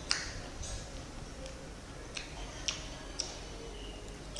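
Chewing fruit close to the microphone: short wet clicks about every half second.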